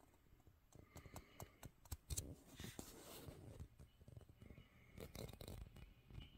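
Faint handling noise: a scattered run of small clicks and rustles starting about a second in, busiest around two to three seconds and again near five seconds.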